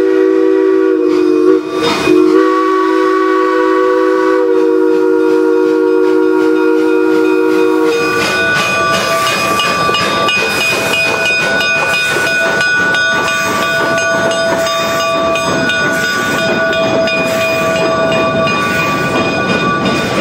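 Steam whistle of Durango & Silverton K-28 2-8-2 locomotive No. 473 sounding a long multi-note chord, broken briefly about a second and a half in, while the engine pulls out. From about eight seconds on the engine and its coaches pass close by: a dense rhythmic rumble of running gear with a high ringing over it.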